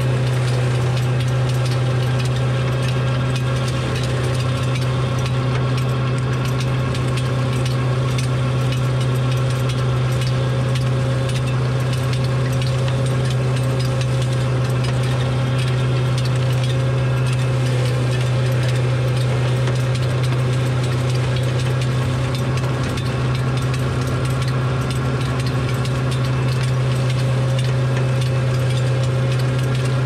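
A machine's engine running steadily at one constant speed, a deep drone with no change in pitch.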